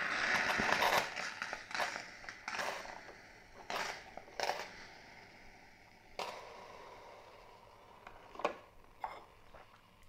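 Hiss and crackle from the just-finished single-cup drip coffee maker, steaming with its lid open, loud at first and fading over the first few seconds. A handful of separate plastic clicks and knocks follow as the filter basket is lifted out of the brewing chamber.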